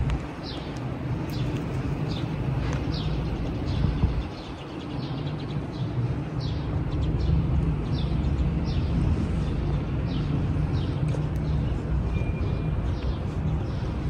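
Small birds chirping again and again: short, high, falling chirps, about one or two a second, over a steady low rumble of city traffic.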